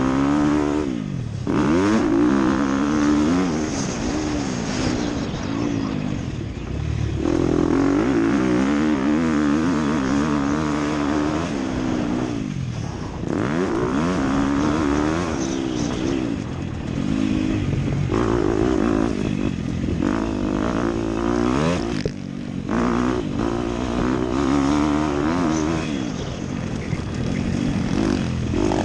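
Dirt bike engine heard from on the bike, revving up and dropping back again and again as it accelerates hard and comes off the throttle around a motocross track. The pitch climbs under throttle and falls away several times.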